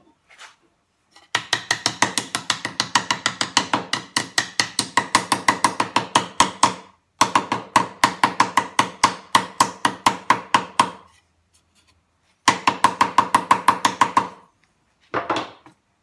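Small mallet tapping quickly and repeatedly on a wooden drawer side, about four or five light blows a second, driving the dovetail joint home for a dry fit. The tapping comes in three runs, the first about six seconds long, with short pauses between them and a single knock near the end.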